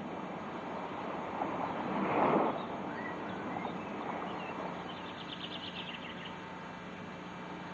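Outdoor ambience: a steady hiss of wind or sea that swells briefly about two seconds in, with faint bird chirps and a short rapid trill a few seconds later.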